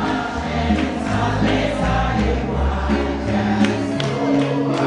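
Gospel music in a church service: voices singing together over a live band, with a moving bass line and scattered drum hits.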